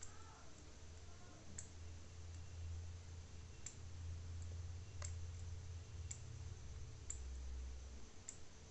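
Badi (sun-dried lentil dumplings) frying in oil in a steel kadai and being turned with a steel spatula: faint, scattered sharp clicks, about one a second, over a low steady hum.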